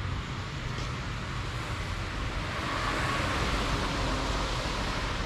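Road traffic noise: a steady hiss over a low rumble, growing louder for a couple of seconds around the middle.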